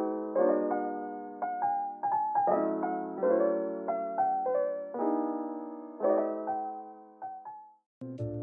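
Background piano music: a gentle melody of struck, fading notes over chords. It breaks off near the end and a different track begins.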